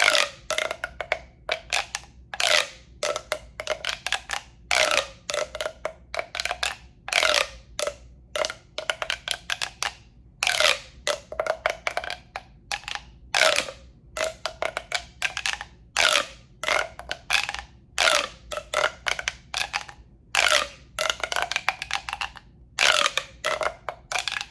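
ASMR tube sounds: a hollow tube tapped and brushed in quick, irregular strokes, each one ringing briefly with the tube's hollow resonant tone.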